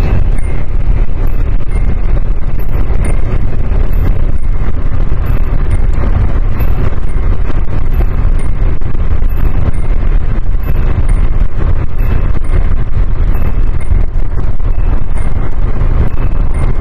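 Nissan S13 Silvia's 'kin-kon' speed-warning chime ringing over and over, a high and a low ding alternating about every 1.3 seconds. It sounds under loud wind and road noise while driving at speed, and the chime signals that the car is above about 105 km/h.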